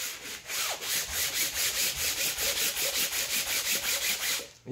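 Sandpaper on a flat block rubbed in quick, even back-and-forth strokes, about four a second, over the engine's metal intake manifold mating surface to level it for a new gasket. The strokes stop just before the end.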